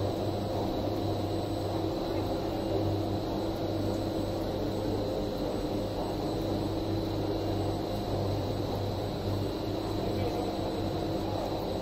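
Cosmic Machines CPTB90 PET strap production line running: a steady machine hum with a low drone and a few constant tones, from the motors of the strap winders and the line.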